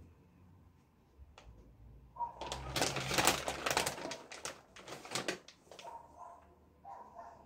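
Plastic candy packaging being handled, a dense run of rapid crinkles and clicks lasting about three seconds after a single click.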